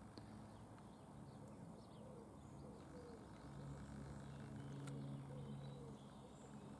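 Quiet outdoor ambience with faint birds calling in the distance. A faint low hum swells up about halfway through and fades again near the end.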